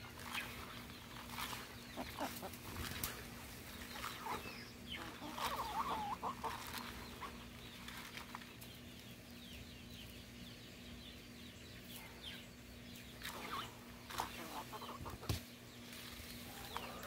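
Chickens clucking now and then, with bursts about five seconds in and again near the end, over the rustle of chicken feed being mixed by hand in a plastic bowl. A faint steady low hum runs underneath.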